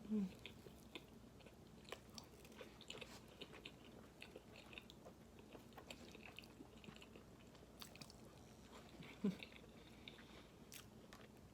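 Faint close-up chewing of food, with scattered soft wet mouth clicks; two brief vocal sounds, one just after the start and one about nine seconds in.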